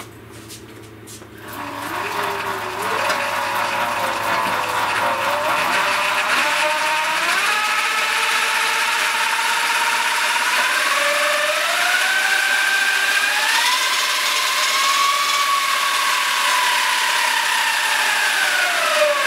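A 2009 Zero MX electric motorcycle's motor and chain drive spinning up with no load, its rear end up on a stand. A fast chain rattle runs with an electric whine that rises in steps as the throttle is opened, holds near top speed, and drops as it winds down near the end.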